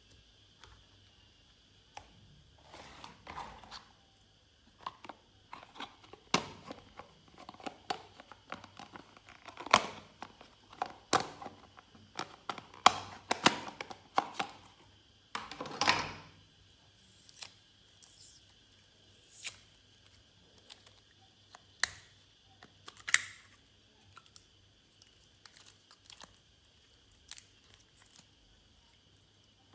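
Glossy slime being squished, poked and mixed by hand, with irregular wet, sticky clicks and pops. These are thickest in the middle and thin out towards the end.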